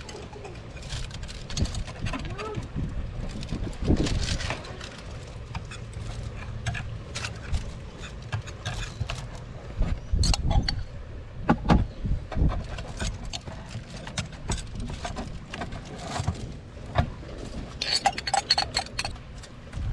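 Irregular sharp knocks and clicks of a butter knife cracking mud crab claw shells and handling the crab, over low wind rumble on the microphone.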